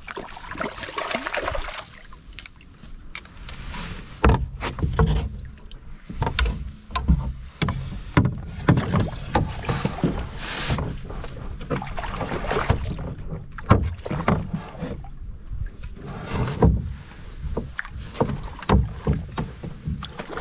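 A walleye being landed in a canoe: water splashing and dripping as the fish is scooped out with a landing net, then irregular knocks and bumps of the net, rod and flopping fish against the canoe.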